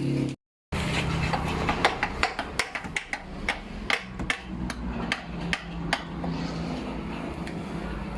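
Irregular series of sharp metallic knocks and clinks, like tools tapping on metal parts, about two or three a second, thinning out after about six seconds. A steady low hum runs under them.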